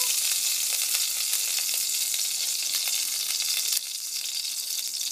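Hot cooking oil sizzling in a pot: a steady hiss with fine crackles, which drops suddenly in level about four seconds in.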